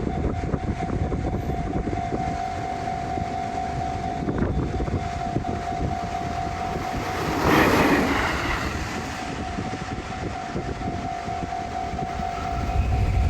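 Train running past a railway level crossing, a steady rumble, with the crossing's warning bell ringing as one steady tone. About halfway through the bell stops as a brief, louder rush of train noise passes.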